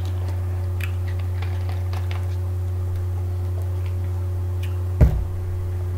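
Steady low hum with faint, scattered small clicks, and a single sharp thump about five seconds in.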